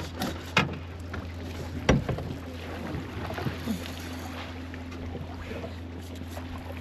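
Steady low hum of a boat motor running, with water noise against the hull and two sharp knocks about half a second and two seconds in.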